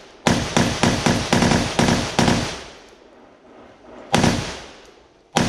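AR-15-pattern 5.56 mm rifle firing: a quick string of about eight shots in two seconds, then two single shots more than a second apart, each echoing away.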